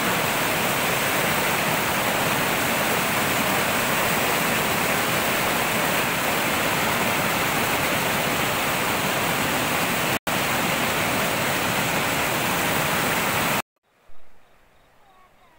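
Small mountain stream rushing fast in white water, a steady loud rush. It cuts out for an instant about ten seconds in, and stops abruptly near the end, leaving a much quieter background.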